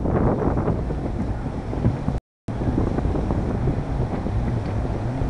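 Wind buffeting the microphone over a jet ski's engine running and its hull churning through the water. The sound cuts out for a moment about two seconds in.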